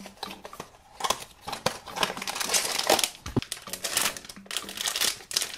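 Quiet rustles and clicks of a cardboard blind box being opened, then a foil blind-box bag crinkling and being torn open, with dense sharp crackling loudest from about one to three seconds in.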